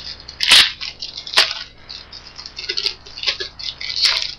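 1995 Topps Finest baseball cards being handled and flipped through one by one: light card clicks and slaps, the sharpest about half a second and a second and a half in, followed by a scatter of softer ticks.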